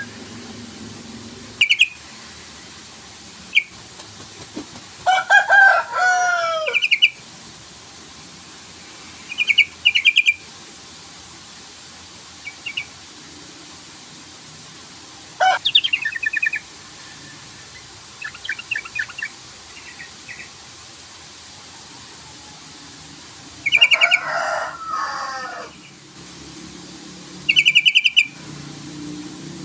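Yellow-vented bulbul (trucukan) calling: short bursts of rapid chattering notes and two longer bubbly, falling warbled phrases, with pauses of a few seconds between them.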